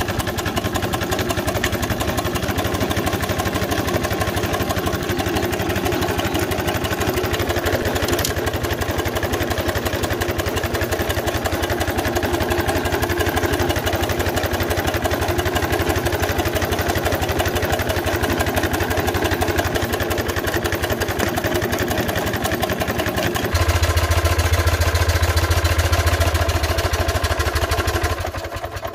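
A 3-inch-scale Burrell-style live-steam traction engine running, with a rapid, even beat. About three-quarters of the way in the sound changes to a louder, deeper steady rumble.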